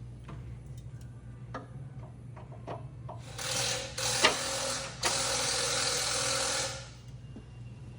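A few light metal clicks and knocks, then a power tool run three times, two short bursts and a longer run of about two seconds, with a hissing whir, as nuts are run down on a bolted mounting plate. A steady low hum lies underneath.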